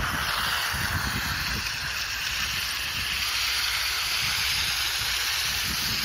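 Steady hissing swish of an electric power trowel running its 400 mm float disc over wet concrete, with an uneven low rumble underneath.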